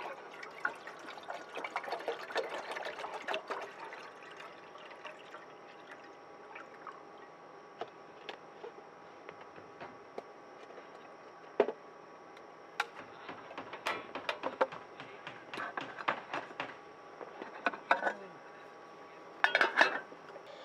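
Water poured from a bottle into a metal camping pot for the first few seconds, filling it. Scattered small clicks and knocks follow, then the lid is set onto the pot with a short clatter near the end.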